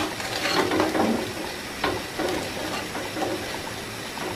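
A spoon stirring a thick curry in a clay pot, with irregular scraping and sloshing strokes over a steady low hum.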